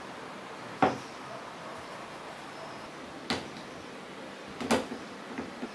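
Sharp knocks of a wooden board and a bar clamp handled on a plywood sled base, three of them, the loudest about a second in, with a few lighter clicks near the end as the quick-release clamp is set and tightened.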